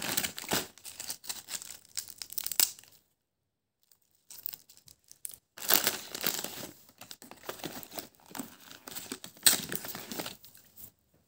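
Plastic crisp packet crinkling as it is handled and squashed by hand, in two long stretches with a short pause about three seconds in.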